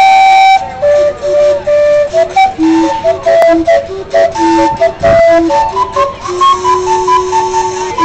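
Steam calliope playing a tune: a quick run of separate whistle notes that jump up and down in pitch, ending on one long held low note near the end.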